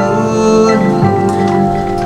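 Music from a slow song, held notes with no words sung, between vocal lines.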